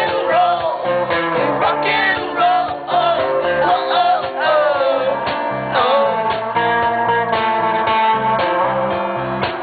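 Live rock band: a woman singing over guitar. The singing stops about six seconds in and the guitar plays on alone.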